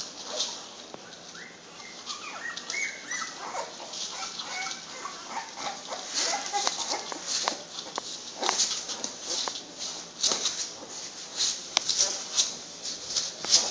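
Newborn American Bulldog puppies nursing, with a run of short, high squeaks and whimpers in the first few seconds. Then comes a long string of quick clicks and smacks from the puppies suckling.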